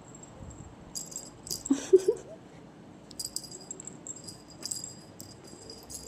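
Small bell jingling in several short shakes, with a brief rising cry about two seconds in.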